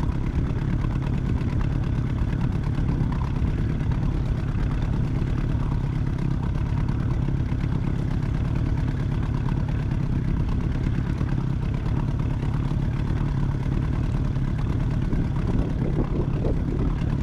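Outboard motor running steadily at low trolling speed, with an even, unchanging drone.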